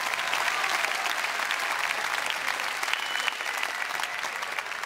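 Arena audience applauding, a dense patter of many hands clapping that eases off slightly near the end.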